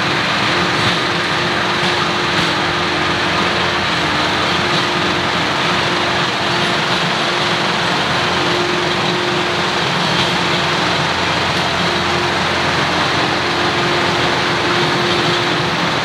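John Deere 4066R compact diesel tractor running steadily with its PTO-driven Rhino rotary tiller churning soil: a constant mechanical drone with a steady whine.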